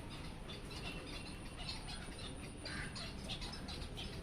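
Birds chirping: many short, high chirps in quick succession, over a steady low rumble.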